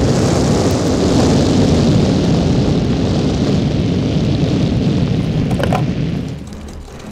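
Film sound effect of a magic fire blast: a loud, steady rush of flames that comes in suddenly, holds for about six seconds and then fades away.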